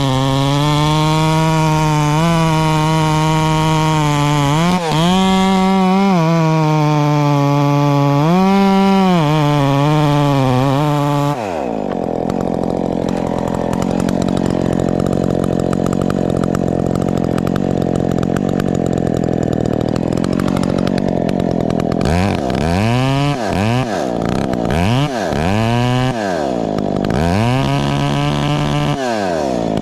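Modified Husqvarna 372 XP two-stroke chainsaw held at high revs under load, its pitch dipping and recovering as it cuts, then dropping sharply to idle about eleven seconds in. Near the end it is blipped up several times in quick revs, then held up in one longer rev that falls away at the end.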